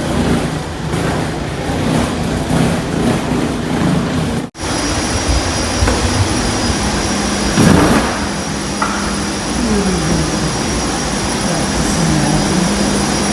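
Steady rushing noise of a jet airliner heard inside the cabin, with faint voices in the background. After a brief cut about four and a half seconds in, steady high whining tones join it.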